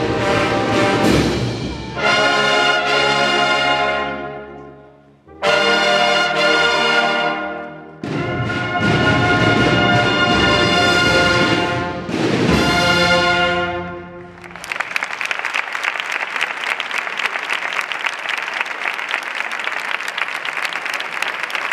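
Brass band of trumpets, trombones, euphoniums and tubas playing the final long held chords of a piece, two of them dying away into the church's reverberation. From about fifteen seconds in, the audience applauds.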